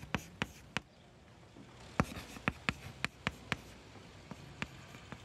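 Writing sounds: an irregular series of short, sharp taps of a writing tool on a hard surface. They come most often in the first second and again from about two to three and a half seconds in.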